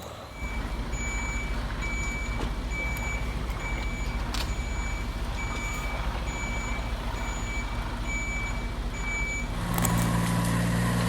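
Truck reversing alarm beeping at an even pace, about once a second, over a steady low engine rumble. The beeping stops near the end and a louder, deeper engine hum takes over.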